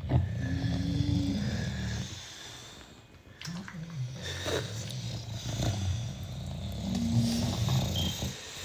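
British bulldogs snoring in their sleep: rasping snores in long breath-length swells, with a brief lull about three seconds in. This is the noisy sleeping breath of a short-nosed breed.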